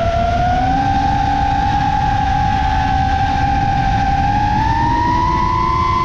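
FPV quadcopter's brushless motors and propellers whining at a high, steady pitch that climbs a little in the second half, over a heavy low rumble of wind on the microphone.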